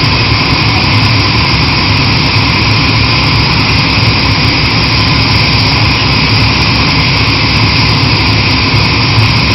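Kaishan KW20 water-well drilling rig running, a loud steady mechanical noise that holds without change.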